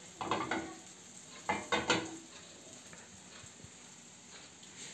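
Small pancakes sizzling in oil in a frying pan, with a few short scrapes and knocks of a spatula against the pan, first about half a second in and again around a second and a half to two seconds in.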